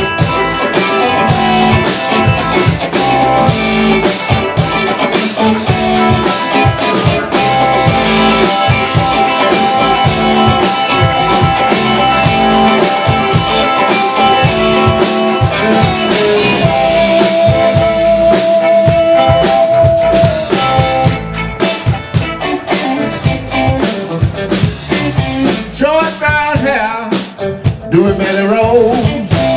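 Live electric blues band playing an instrumental break: electric guitar lead over bass and drum kit. A single note is held for a few seconds past the middle, and the playing thins out near the end.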